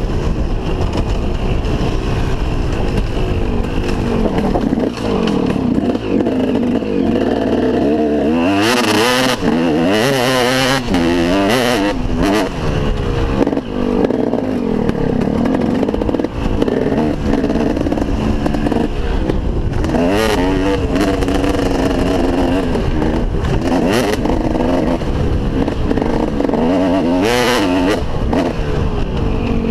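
A 2003 KTM SX 250 two-stroke motocross engine under way on a dirt track, its revs rising and falling over and over as the rider works the throttle and gears, with a few louder, higher-revving surges. Heard from a helmet-mounted camera.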